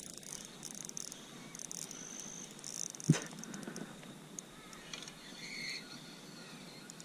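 Insects chirring steadily in the background, with one sharp knock about three seconds in.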